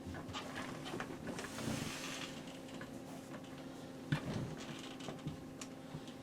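Repaired office chair clicking and creaking as someone sits in it and shifts their weight, with a soft rustling swell about two seconds in and a sharper click about four seconds in, over a steady low hum.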